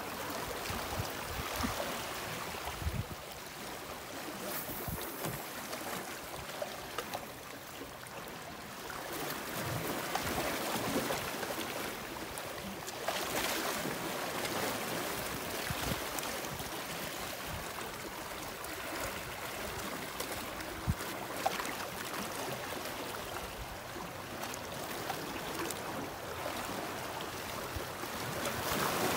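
Sea waves washing on the shore: an even rushing noise that swells and ebbs every few seconds, with a few short low thumps.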